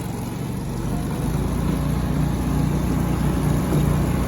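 Riding lawn mower's small engine running with its throttle set to fast (rabbit), a steady hum that gets louder from about a second in.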